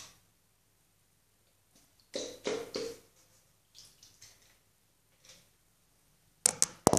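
A few short wet splashing and squishing sounds as a sock stretched over a cut plastic bottle is wetted at a bathroom sink, followed near the end by several loud sharp knocks.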